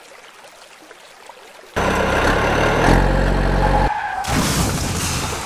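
Truck engine sound effect dubbed over toy trucks, cutting in abruptly about two seconds in after a faint stretch. It runs loud with a low engine note, which drops away near the four-second mark, leaving a noisy rush.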